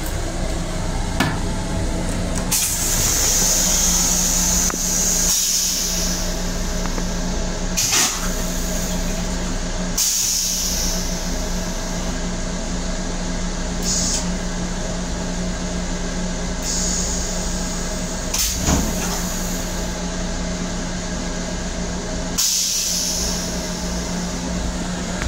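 LIRR M7 railcar toilet flushing: about six separate hissing spurts of rinse spray into the stainless-steel bowl, a few seconds apart, the first and longest about 2.5 seconds in. A steady hum runs under them and stops shortly before the end.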